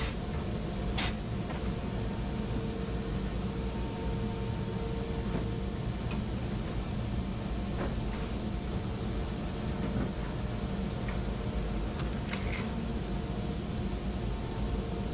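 Skid steer engine running steadily as its 4-in-1 bucket scrapes up sawdust, with a few sharp knocks about a second in and again near the end.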